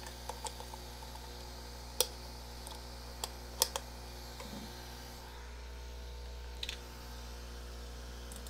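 Scattered sharp clicks and taps from a multimeter and its probe leads being handled and hooked up, loudest about two seconds in and again twice just before the middle, over a steady low electrical hum.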